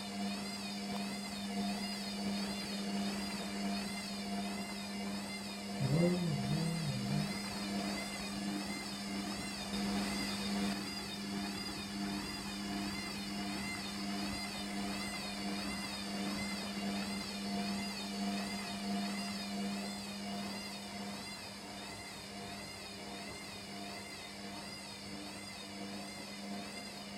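Newly installed washing machine running: a steady low hum with a high whine that wavers up and down evenly, about twice a second. A brief wobbling low sound comes about six seconds in.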